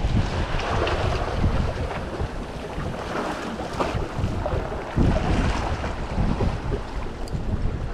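Wind buffeting the microphone in gusts, over the wash of sea waves against a rock wall.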